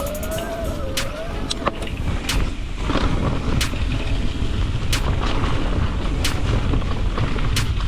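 E-mountain bike riding a trail: a steady rumble of wind and tyres on the action camera's microphone, with a sharp click repeating about every second and a quarter. A motor whine at the start fades out within the first second or so.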